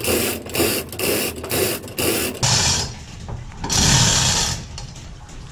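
Hand winch ratcheting, about four clicks a second, as a wire basket of wet, pasteurised straw is hoisted out of a drum of hot water. The clicking stops a little past halfway, and two rushes of water follow as the water drains out of the lifted straw into the drum.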